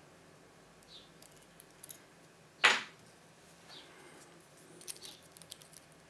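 Steel hook pick and tension wrench working the pin tumblers of a TESA TK6 euro cylinder: scattered small metallic clicks and scrapes, with one much louder sharp knock about two and a half seconds in.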